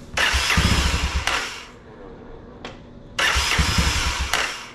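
1985 Honda ATC 250SX's single-cylinder engine cranked over twice, about a second and a half each time, with a quick chugging, and not catching: it will not start.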